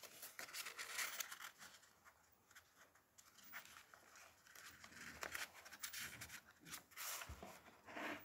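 Faint rustling and scraping of paper and card in short strokes, as a journaling card is drawn out of a paper pocket and slid back in and the journal's pages are handled.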